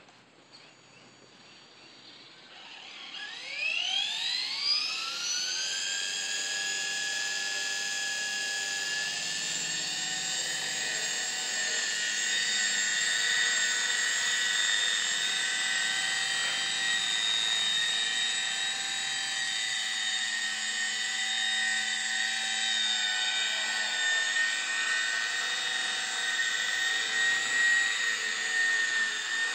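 JR Voyager E electric RC helicopter spooling up: a high whine with several tones rises in pitch for about three seconds, starting a couple of seconds in, then holds steady.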